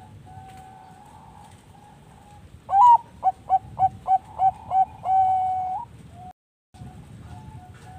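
Zebra dove (perkutut bangkok) cooing. Soft coos give way to a loud song phrase: a rising opening note, about six quick staccato coos, and a long drawn-out final note. The sound cuts out briefly near the end.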